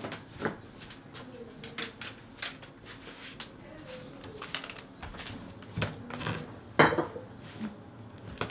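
Metal trekking poles clinking and knocking against each other as they are handled: a scatter of light metallic clicks, the loudest about two-thirds of the way in.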